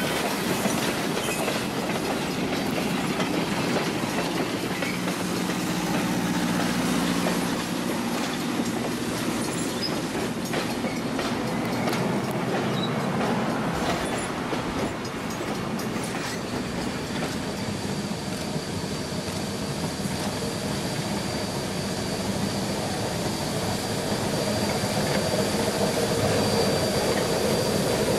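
A train running on rails, a steady rumbling noise, with a steady high whine joining a little past halfway.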